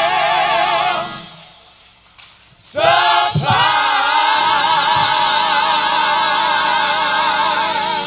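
Gospel praise team singing in harmony: a held chord with vibrato fades out about a second in, and after a short pause the singers come in on another long held chord.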